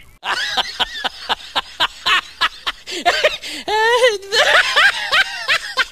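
High-pitched laughter in rapid bursts of about six a second, broken about three and a half seconds in by a long wavering cry before the rapid laughing resumes.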